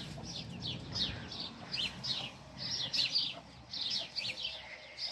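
Young chicks peeping: a steady run of short, high chirps that fall in pitch, about three or four a second.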